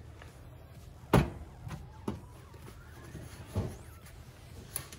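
Metal engine parts knocking on a steel workbench as a connecting rod and its bearing cap are handled and set down: one sharp knock about a second in, then three softer ones, with a paper shop towel rustling between them.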